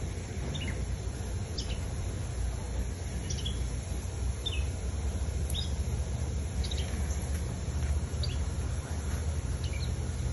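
Birds chirping outdoors: short, falling calls scattered about once a second, over a steady low rumble.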